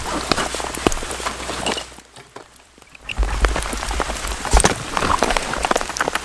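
Rain pattering on a rain jacket and camping gear, a dense run of small clicks and crackles, mixed with rustling and knocks as gear is handled; a short quieter lull comes about two seconds in, and heavier handling knocks and rumble follow about a second later.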